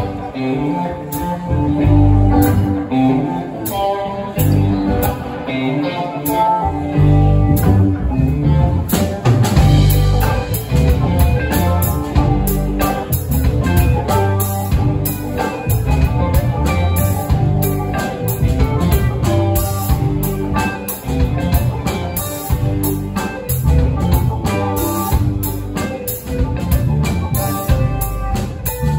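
Live rock band playing: electric guitars, stage keyboard and drum kit together at a steady beat, with the drums and cymbals filling out about nine seconds in.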